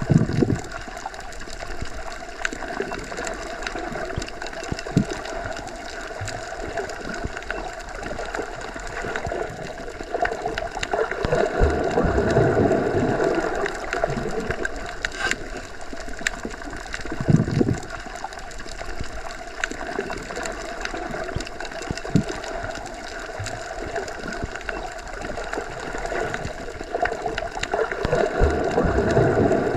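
Underwater ambience as heard submerged in deep water: a continuous muffled wash with a steady hum, slow low swells about twelve seconds in, again near seventeen seconds and near the end, and scattered faint clicks.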